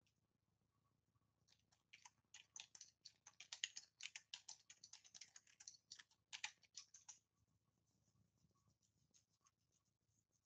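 Rapid, faint typing on a computer keyboard: a quick run of keystrokes that starts about two seconds in and stops about seven seconds in.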